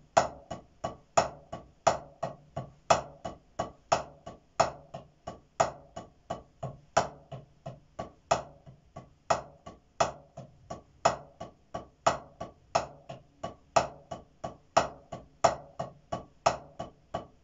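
Drumsticks on a practice pad playing accented paradiddles at an even tempo, about four strokes a second, loud accents standing out among soft taps. A faint steady hum lies underneath.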